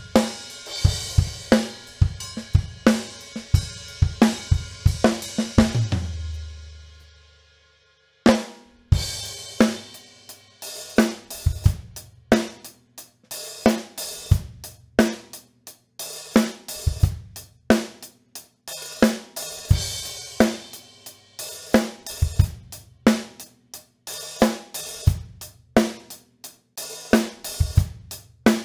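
Acoustic drum kit played on its own, with no backing track: kick, snare, hi-hat and cymbals in a steady groove. About six seconds in, the playing stops and a low ring fades away for about two seconds. The beat starts again after that and runs on to the end.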